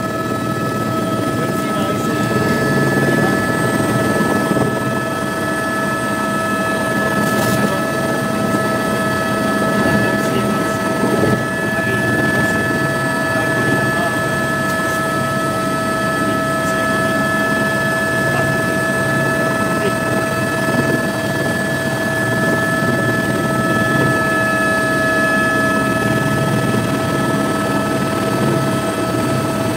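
Helicopter in flight heard from inside the cabin: a steady whine of several high tones over a dense, even rumble of rotor, engine and airflow noise.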